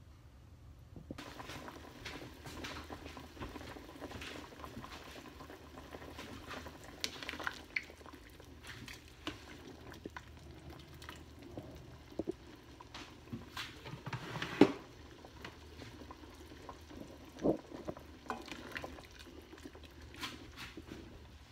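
Herbal soup bubbling in a stainless steel stockpot while a white plastic ladle stirs it, knocking against the pot several times; the loudest knock comes about two-thirds of the way through.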